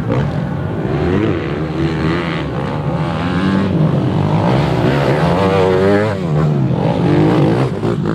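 Several motocross bikes' engines revving up and down as riders come through a turn, the pitch rising and falling with throttle and gear changes. One bike passes close about halfway through, its engine the loudest.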